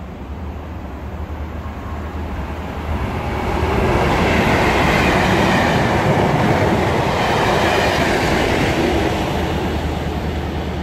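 Colas Class 37 diesel locomotives, with their English Electric V12 engines, hauling a Network Rail test train past: engine and rail noise building to a peak about four seconds in as the leading locomotive goes by, then the coaches' wheels running over the rails as the sound slowly eases.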